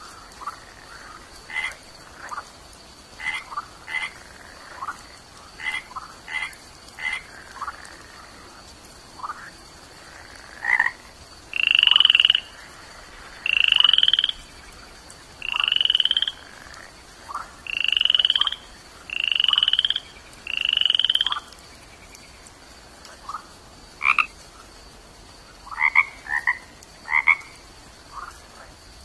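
Frog calls: scattered short chirps, then a run of six louder calls about a second long each, rising slightly in pitch, then more short chirps near the end. A faint steady high tone lies behind them.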